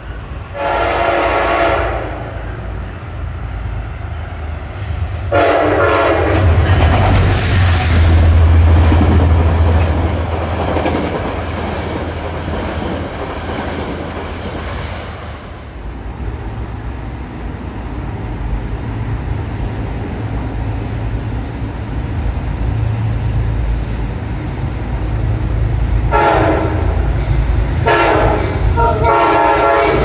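Metro-North train horns: a blast about a second in and another about five seconds in, with a train rumbling and clattering along the rails between them. Near the end an approaching Metro-North P32AC-DM diesel locomotive sounds three short horn blasts in quick succession.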